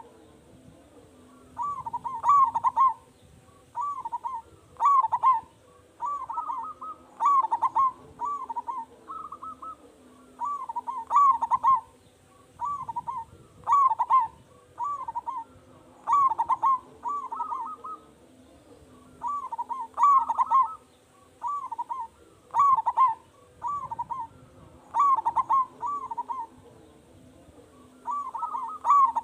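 Zebra dove (perkutut) cooing over and over, each phrase a quick run of several notes, one phrase every two to three seconds.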